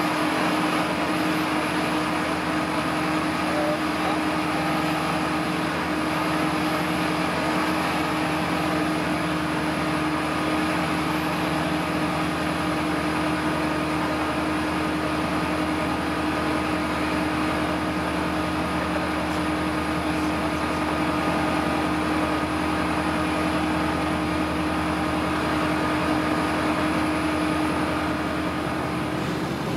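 Motor glider's piston engine and propeller droning steadily in flight, heard inside the cockpit with a constant rush of airflow.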